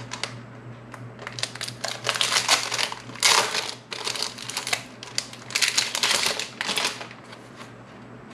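Planner inserts and their packaging being handled: paper and plastic rustling and crinkling, with quick small clicks. It comes in two main spells, the first from about a second in to about four seconds, and the second a little after five seconds.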